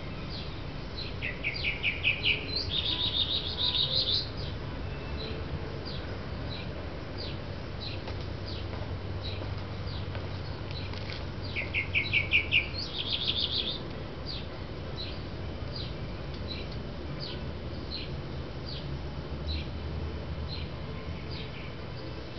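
Songbirds singing: a short high chirp repeated about once a second, and twice a louder phrase, a fast trill that jumps to a higher, faster trill, about a second in and again near twelve seconds, over a low steady background rumble.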